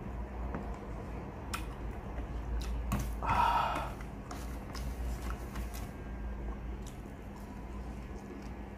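Eating sounds from a man chewing sweet potato slices and handling them on a plate: scattered small clicks, with a short crunchy rustle a little over three seconds in, over a steady low hum.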